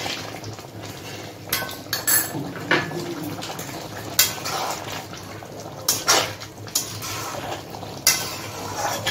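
A spatula scraping and knocking against a metal kadai as a curry is stirred, in irregular strokes, over a low steady bubbling of the simmering curry.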